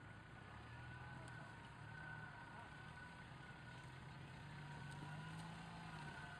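Faint engine of an Opel Frontera running at low revs as the 4x4 crawls over rough grass off-road, its note rising a little about five seconds in.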